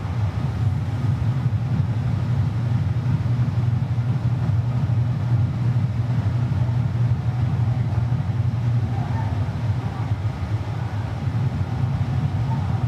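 Steady low rumble of harbour ambience, even throughout, with no sharp bangs.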